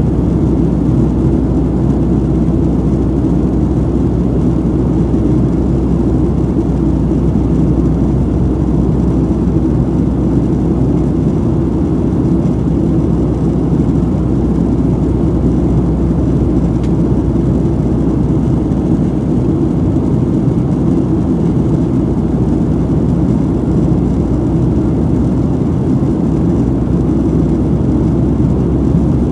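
Steady low drone of a Boeing 737-700 in flight, heard inside the cabin: its CFM56-7B jet engines and the rushing airflow over the fuselage, unchanging throughout.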